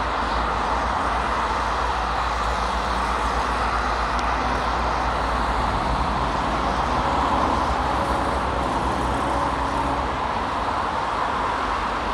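Steady motorway traffic noise: the tyres and engines of passing cars and a lorry.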